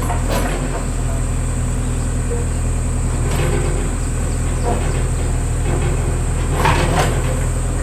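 A heavy diesel engine, tractor or backhoe, running steadily, with a couple of brief louder bursts of noise about three and a half and seven seconds in.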